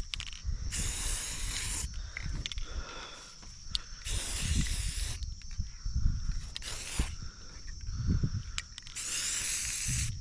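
Aerosol can of gloss black spray paint hissing in four separate bursts. Three bursts last about a second each and one is short, with a low rumble underneath.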